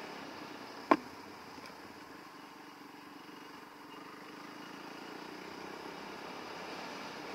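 Yamaha WR450F single-cylinder four-stroke dirt bike engine running steadily on a trail ride, with one sharp knock about a second in.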